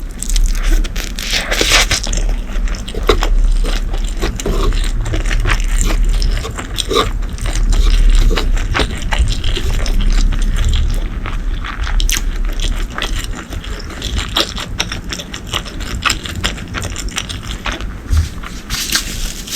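Close-miked eating sounds: steady chewing and crunching with many quick clicks, crackles and scrapes.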